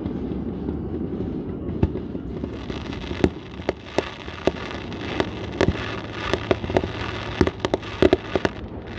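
Consumer fireworks going off: after about two seconds, a quick, irregular run of sharp pops and crackling, with the loudest bangs near the end.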